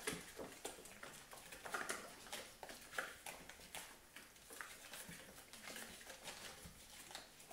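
Young puppies suckling at their mother: faint, irregular smacking and clicking, with a couple of brief squeaks about two and three seconds in.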